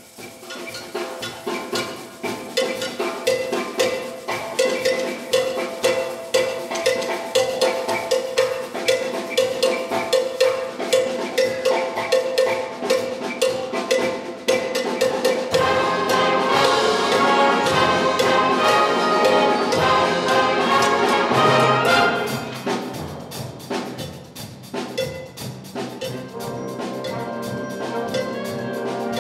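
Concert band playing: a steady drum rhythm under a held low note, then the full band with brass comes in loudly about fifteen seconds in and drops back to a softer passage about seven seconds later.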